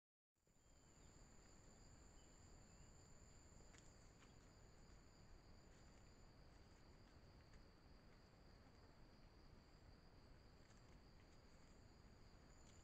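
Near silence: faint steady high-pitched insect trilling over a soft hiss, starting after a brief dropout. A few faint ticks and rustles in dry leaf litter are scattered through, most near the end.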